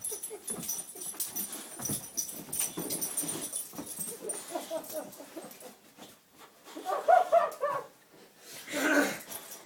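Boxer dogs whimpering and whining in excitement, with breathy huffing between short cries; a louder whine comes about seven seconds in and another loud cry near the end.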